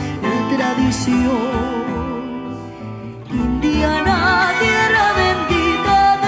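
Live acoustic Colombian ensemble of transverse flute, violin, double bass, tiple and guitar playing a caña, with a girl's voice singing over it. The music thins out and drops in level about halfway through, then comes back fuller.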